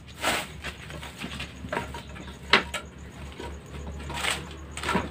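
Firewood sticks knocking and clacking as they are pushed and arranged in a wood-fired clay stove to get the fire burning. Several sharp clacks come scattered through it, the loudest a little past halfway.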